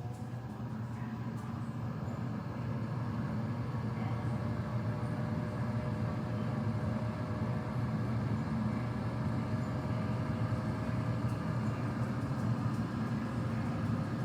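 Dreo ChefMaker combi air fryer running: a steady fan and motor hum with a few faint whining tones. It builds up over the first couple of seconds, then holds level.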